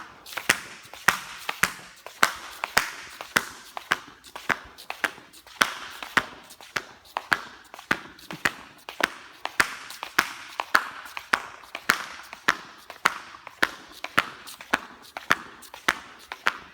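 Flip-flops slapping in a steady rhythm of sharp flops, about two a second.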